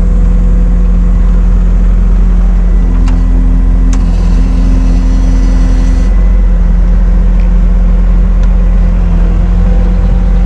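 Skid steer engine running steadily just after being started. A higher steady whine joins for about three seconds in the middle.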